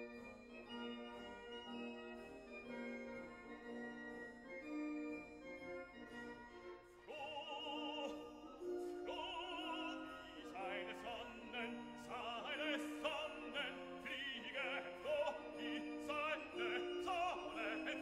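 Classical background music: slow keyboard-like accompaniment, then an operatic voice enters about seven seconds in, singing sustained notes with wide vibrato.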